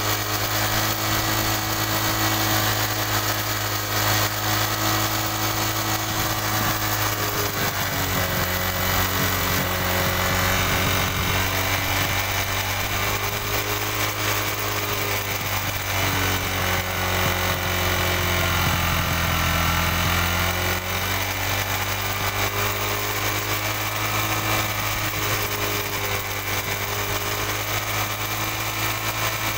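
Honda Dream Yuga's 110 cc single-cylinder four-stroke engine idling while its carburetor is adjusted for mileage. From about eight seconds in to about twenty seconds in, the idle speed wavers and shifts, then it settles back to a steady idle.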